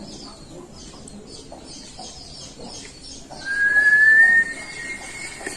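Birds chirping faintly, then about three seconds in a loud, high whistle tone that rises slightly and is held for about two seconds.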